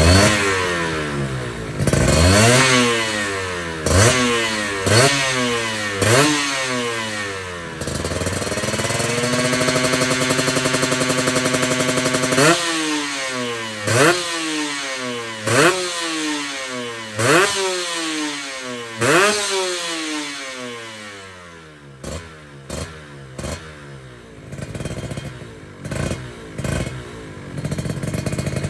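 Kawasaki Ninja two-stroke motorcycle engine with a stock engine and a CMS aftermarket exhaust, revved repeatedly in quick throttle blips that rise sharply in pitch and fall back. About a third of the way in, the revs are held steady for a few seconds. Toward the end the blips are smaller and quieter.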